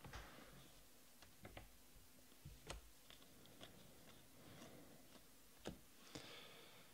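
Near silence with a few faint clicks and soft rustles of a stack of trading cards being flipped through in hand.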